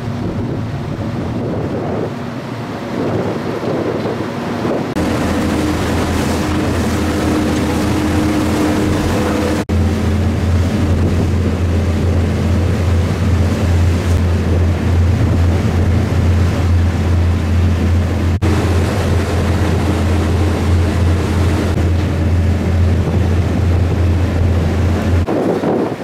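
Ferry engine running with a steady low drone, louder after the first few seconds. Over it are the rush of the wake and wind buffeting the microphone.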